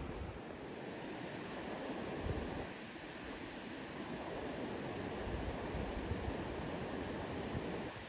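Wind rushing through the cloud-forest canopy, with gusts buffeting the microphone about two, five and seven seconds in, over a steady high-pitched drone.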